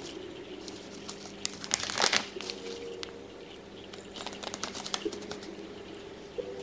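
Flour bag crinkling as it is tipped and shaken, almond flour pouring into a metal measuring cup, with a few light clicks. The rustling is loudest about two seconds in.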